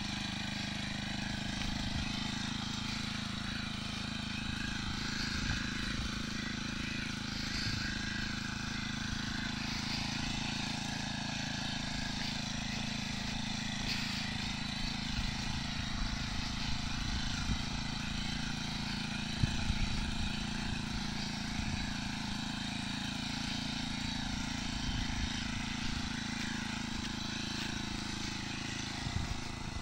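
Backpack power sprayer's small engine running steadily at an even speed while the sprayer is carried along.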